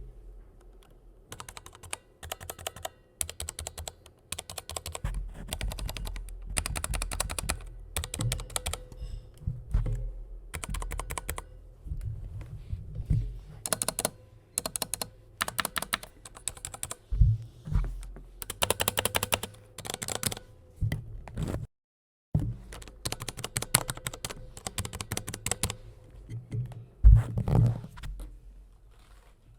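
Mechanical keyboard with Cherry Viola switches (Corsair K60 RGB Pro SE) being typed on in quick bursts of key clicks with short pauses between them, with a few heavier key thocks. The sound drops out completely for about half a second partway through.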